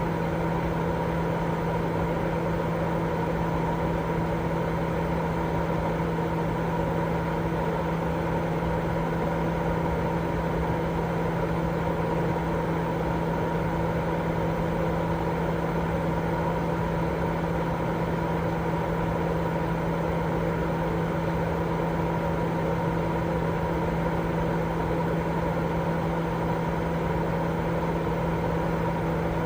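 Baby sleep white noise: a steady, unchanging rushing noise with a low steady hum under it, like a running machine.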